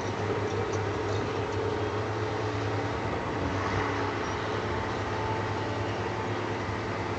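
SDLG 6225 excavator's diesel engine running steadily as the machine digs, a constant low hum.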